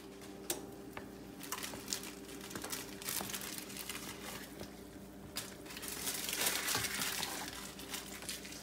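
Pot of ramen noodles simmering in broth, with a steady run of small crackles and pops as a spoon stirs and breaks up the noodle blocks.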